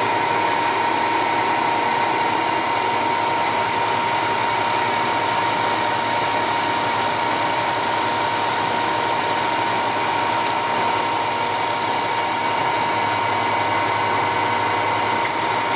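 CNC milling machine spindle turning a 3/8-inch end mill, skimming about 15 thousandths of an inch off the top of a brittle plastic sheet: a steady whirring hiss under a steady whine. A higher whine comes in about four seconds in, drops out after about twelve seconds and returns near the end.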